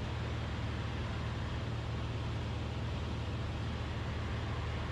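Steady drone of a Cessna 172RG's four-cylinder Lycoming engine and propeller in level flight, heard inside the cabin.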